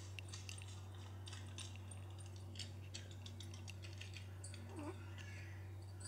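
Faint scattered light clicks and rustles from handling, over a steady low hum, with a brief rising squeak about five seconds in.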